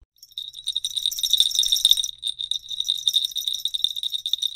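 Jingle-bell sound effect: a rapid, high shimmering jingle that starts a moment in and holds steady.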